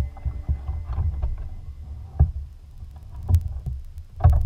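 Knocks and bumps on a plastic kayak hull as the rod and paddle are handled, over a low rumble through the boat-mounted camera. The sharpest knocks come a little after two seconds, after three seconds, and the loudest just past four seconds.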